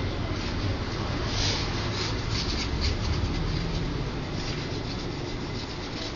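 Scratchy rubbing and scraping, strongest a second or two in, over a steady low rumble.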